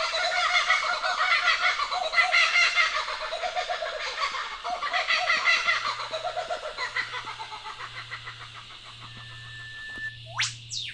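Laughing kookaburras calling in a rhythmic chorus that fades away over several seconds. Then an eastern whipbird gives its call near the end: a held whistle, a sharp whip-crack note sweeping steeply downward, and a second, shorter downsweep answering it.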